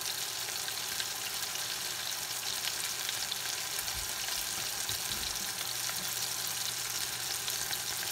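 Steady sizzling and crackling of frying: ground-pork burger patties cooking in butter in a skillet.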